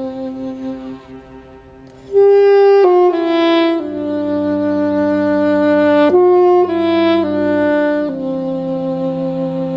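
Saxophone and cello duet playing a slow piece. A held note fades away, the saxophone comes in loudly about two seconds in with a phrase of long held notes, and bowed cello notes sound low underneath.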